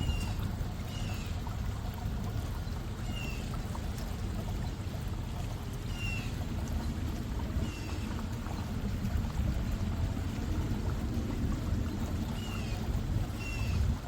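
Glenville pump-driven cascading water fountain running steadily, water spilling and splashing down its tiers, with short high chirps repeating every few seconds over it.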